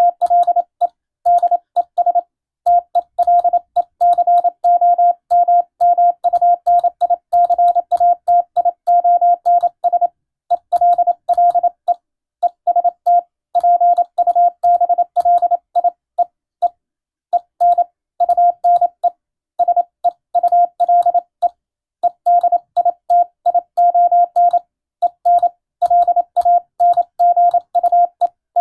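Morse code (CW) tone keyed on and off in dots and dashes, a single pitch near 700 Hz with short pauses between letters and words, sending a Latin-alphabet radiotelegram for receiving practice.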